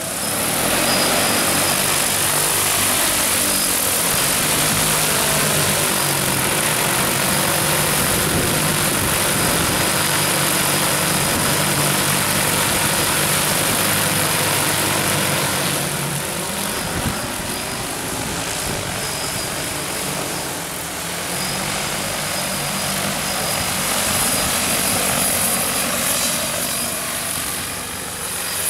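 DJI T40 agricultural drone's rotors running at flight power, a loud steady whir. It eases a little about halfway through and swells again near the end.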